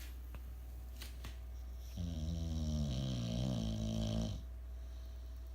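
A sleeping pet snoring: one long drawn-out snore starting about two seconds in and lasting a little over two seconds, with a high whistling edge, over a steady low hum.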